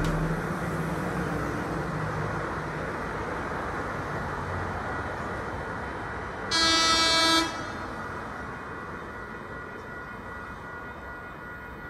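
Horn of an approaching electric passenger train, one blast of about a second, about six and a half seconds in, over a rail rumble that slowly fades away.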